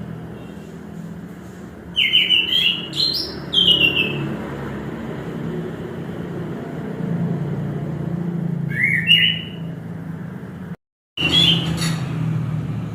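Orange-headed thrush singing: three phrases of quick stepped whistled notes, about two seconds in, near the middle and near the end, over a steady low rumble. The sound cuts out for a moment shortly before the last phrase.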